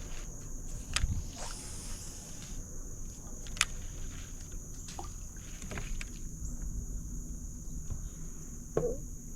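A steady high-pitched drone of insects, with a handful of sharp knocks and clicks from handling in the boat, one about a second in, others at intervals, the last near the end.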